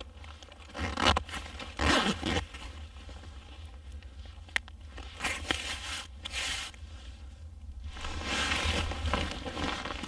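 Rustling and crinkling in several short bursts, with a single sharp click about halfway through.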